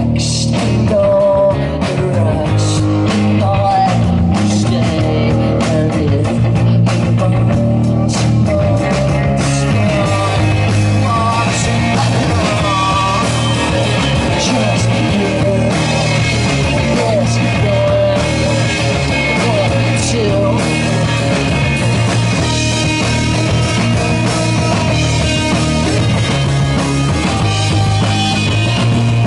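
Live rock band playing loud, steady psychedelic rock.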